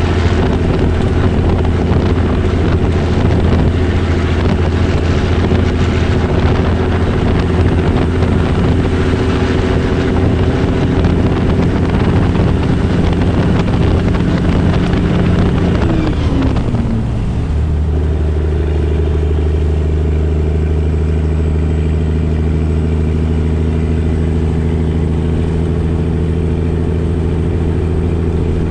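A 1984 Peterbilt 362 cabover's Caterpillar 3406B inline-six diesel running steadily at highway speed, over wind and road hiss. About two-thirds of the way in, the engine note dips briefly, then settles steady again with much less wind hiss.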